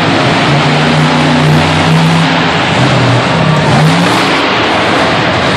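Monster truck's V8 engine revving hard under load, its pitch climbing and dropping several times.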